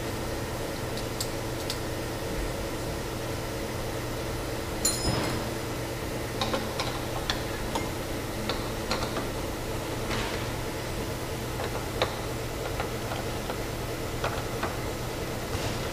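Steady hum of factory machinery with irregular clicks and knocks of work on a machine. A ringing clink about five seconds in is the loudest.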